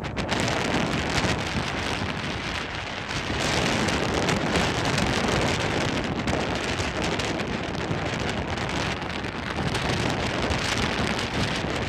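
Heavy rain and strong wind on the microphone: a dense, steady hiss with no let-up.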